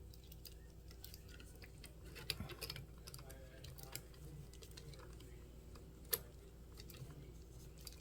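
Faint scattered clicks and light taps of small RC car parts being handled and fitted together by hand, with a small cluster about two and a half seconds in and one sharper click about six seconds in, over a steady low hum.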